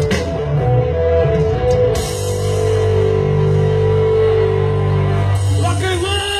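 Rock band playing, with electric guitar and drum kit, holding long chords in the middle and a note bending in pitch near the end.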